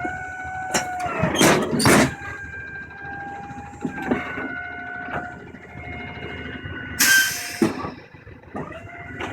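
Delivery truck being unloaded: a steady mechanical whine that shifts pitch a few times, with clunks about one and a half and two seconds in and a short loud hiss about seven seconds in.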